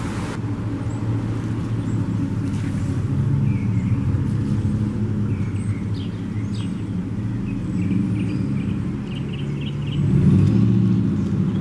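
An engine running steadily with a low, even hum that grows louder about ten seconds in, with a few faint high chirps over it.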